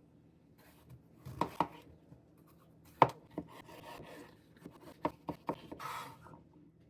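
Kitchen food preparation: a handful of irregular knocks on a countertop, the sharpest about three seconds in, with stretches of rustling between them.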